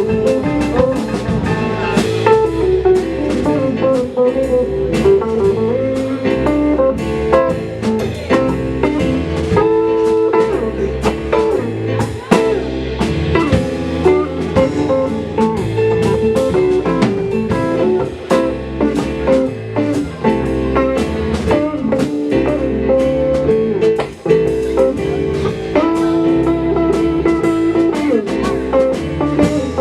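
Live band playing an instrumental stretch with no vocals: a guitar playing over bass and a drum kit.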